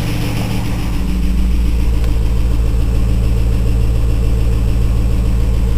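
Pontiac Trans Am's 5.7-litre LS1 V8 idling steadily, with a tick that has just started and that the owner can't place, though the oil is fine. About a second in, the low hum grows stronger and the higher hiss fades.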